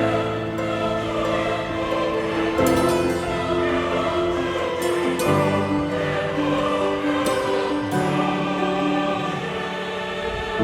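Background music: a choir singing long held notes that move slowly from chord to chord.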